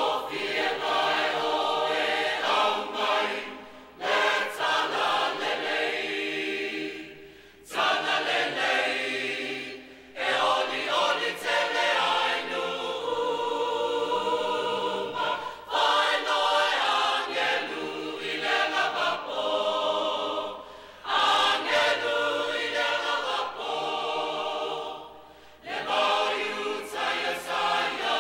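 Large mixed choir of men's and women's voices singing a Christmas song, in phrases a few seconds long with short breaths between them.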